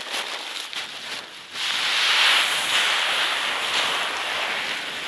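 Wind gusting: a rushing hiss that swells about a second and a half in and then slowly eases.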